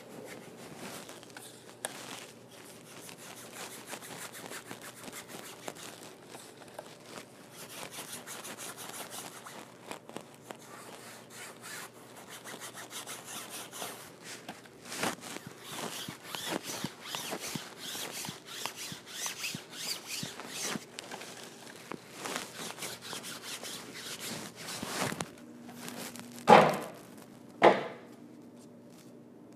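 Paintbrush scrubbing and stroking across a stage backdrop, a continuous scratchy rubbing that turns into quicker back-and-forth strokes about halfway through. Near the end come two sharp, loud knocks a second apart.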